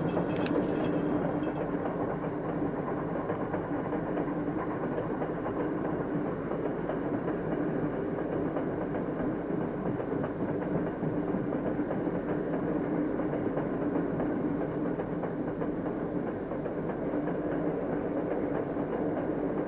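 Passenger train running along the rails: a steady rumble of the wheels and carriage.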